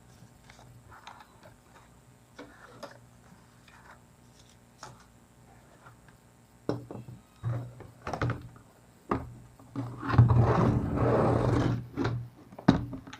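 Handling noise: scattered light clicks and knocks, a few louder knocks past the middle, then a louder rustling scrape lasting about two seconds near the end.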